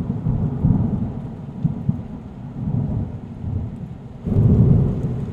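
Rolling thunder rumbling deep and low with rain, easing off and then swelling into a second, louder rumble about four seconds in.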